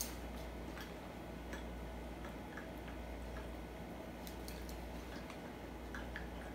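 Quiet handling of a plastic lemon-juice bottle pouring into a zip-top plastic bag: a sharp click at the very start, then scattered light ticks and clicks over a low steady hum.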